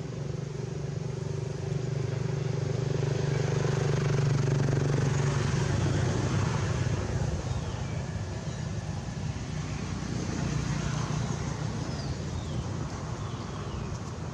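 A motor vehicle's engine running steadily, growing louder about four seconds in and then fading.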